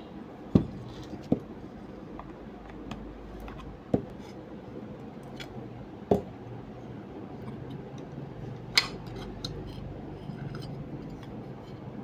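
Sharp knocks and clinks of hand tools and small metal parts being handled, five louder ones spread out with the sharpest near the end, over a steady low hum.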